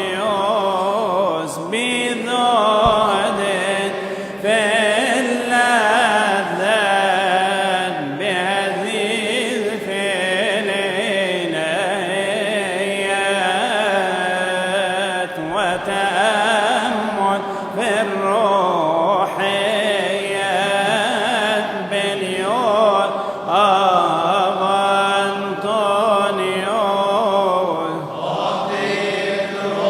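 A man's solo voice chanting a Coptic madih (Arabic praise hymn) in long, ornamented phrases that waver and bend in pitch, with short breaths every few seconds.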